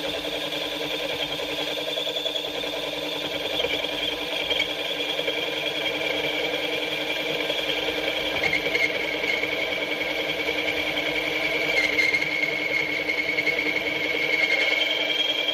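Milling machine's end mill cutting a round bore in a metal plate: a steady high whine that drifts slightly in pitch over the dense rattle of the cut.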